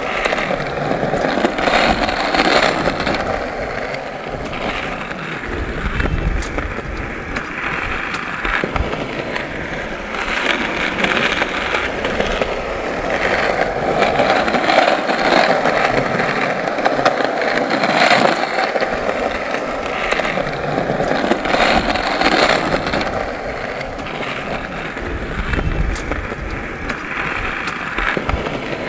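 Skateboard wheels rolling over pavement in a steady gritty rumble that swells and eases, with a few sharp clicks along the way.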